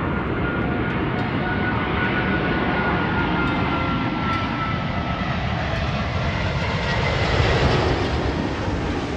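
British Airways Airbus A380's four Rolls-Royce Trent 900 turbofans, a loud steady jet rumble. A thin engine whine slowly falls in pitch, and the rumble swells slightly near the end.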